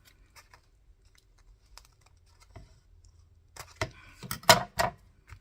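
Crafting materials handled at a desk: paper and lace being moved and pressed down, with faint scattered light clicks, then a cluster of sharper clicks and rustles about three and a half seconds in.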